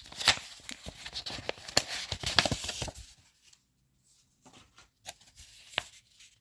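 Packaging rustled and crinkled by hand for about three seconds, then a few light clicks and taps.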